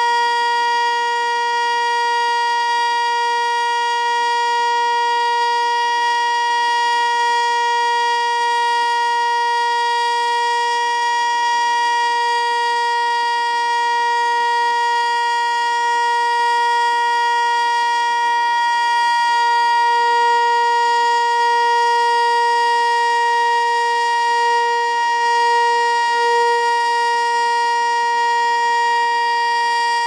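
ASC T-121 outdoor warning siren sounding a steady alert tone: one unwavering pitch with many overtones, holding level throughout. It has missed its cancel tones and is stuck sounding far past its usual one-minute test.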